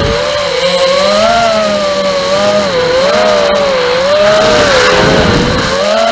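Furibee Darkmax 220 FPV racing quadcopter's brushless motors and propellers whining, the pitch wavering up and down with throttle changes, with a burst of rushing air about five seconds in.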